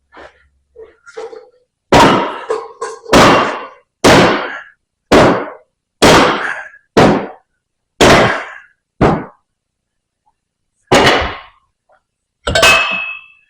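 Heavy mallet blows hammering a stuck piston out of a hydraulic cylinder barrel: about ten loud, ringing strikes, roughly one a second after a couple of faint knocks, with a short pause near the end.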